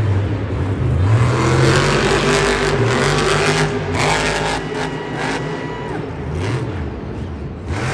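Monster truck engine revving hard, its pitch rising and falling again and again.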